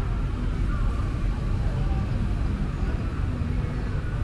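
Street traffic noise dominated by passing motorbikes, a steady hum with faint voices of people nearby.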